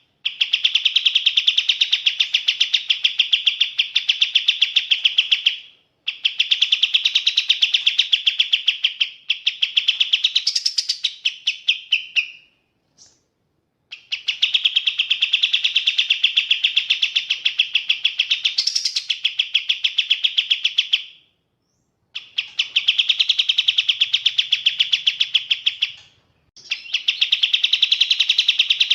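Kapas tembak bird singing its rapid-fire song: long runs of fast, evenly repeated high notes, each lasting several seconds, broken by four short pauses.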